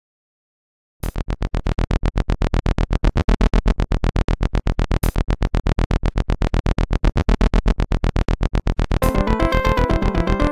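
Electronic music: after about a second of silence, a fast, even synth pulse starts, and a melody comes in near the end.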